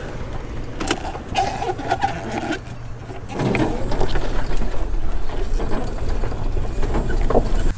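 Golf cart driving over grass: a steady low hum from the cart, growing louder and rougher about halfway in, with rattling and knocks from the cart body and loose gear over the bumps.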